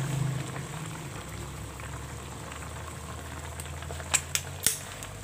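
Chicken adobo with potatoes simmering in a wide metal pan. Near the end, a spoon clicks against the pan three times.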